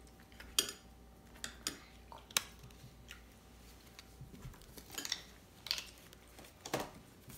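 Scattered sharp clicks and light taps, about seven over several seconds, from a spoon in a ceramic cereal bowl and a deck of trading cards being handled on a wooden table.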